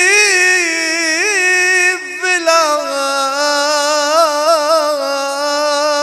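A man's solo voice singing a manqabat, a Dari devotional praise song, holding long drawn-out notes with wavering melismatic turns. The first phrase breaks off about two seconds in, and a second long held phrase follows.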